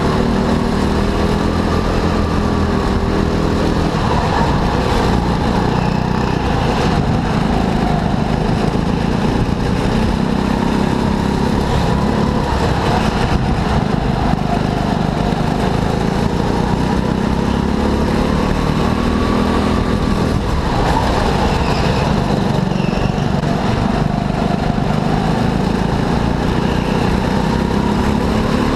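Go-kart engine running hard, its pitch climbing and dropping every few seconds as the kart speeds up and slows, over a steady low rumble.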